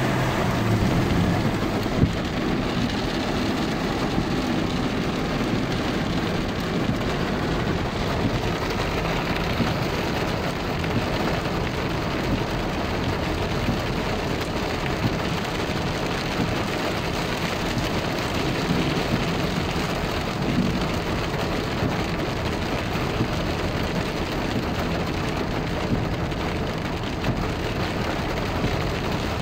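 Heavy rain falling on a car's roof and windshield, a steady dense hiss heard from inside the car. A single sharp knock about two seconds in.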